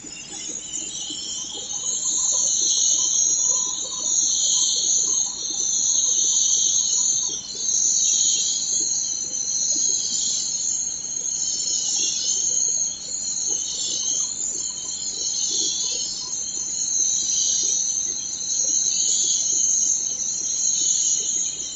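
Compressed-air paint spray gun hissing as it sprays, a loud high hiss that dips briefly every few seconds between passes.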